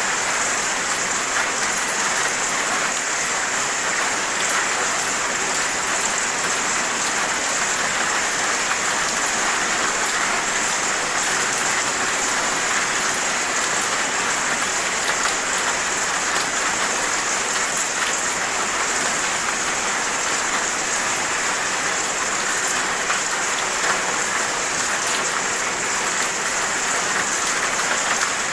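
Steady rain falling, an even hiss of rain on surfaces with scattered individual drop ticks.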